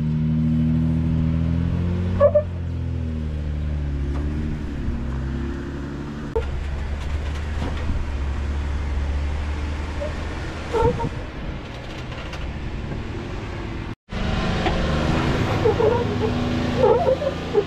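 Jeep Wrangler Rubicon engine running at low speed, its pitch rising and falling as it is throttled on and off. Midway there is a stretch of crackling and scraping over the steady engine hum. The sound cuts out for an instant near the end, then the engine returns.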